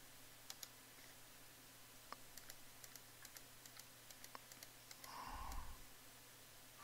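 Near silence with a scatter of faint computer clicks, keyboard or mouse, as pages of a document are advanced; a faint soft noise comes about five seconds in.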